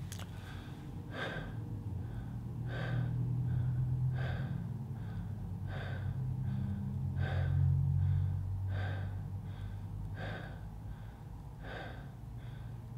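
A man demonstrating connected breathwork: quick, audible breaths through the mouth, each inhale running straight into the exhale with no pause, about one full breath every second and a half, the exhale released loosely rather than pushed.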